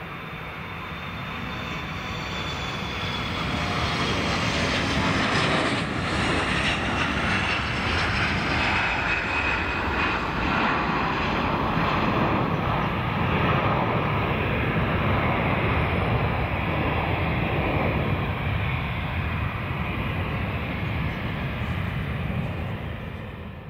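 Airbus A320-200's twin jet engines at taxi power: a steady rumble with a high whine that grows louder over the first few seconds as the airliner approaches, then holds steady as it passes close by.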